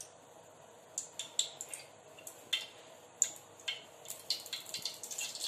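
Cooking oil being poured into a hot metal kadai and crackling, with sparse sharp ticks and pops from about a second in that grow thicker toward the end as the oil heats.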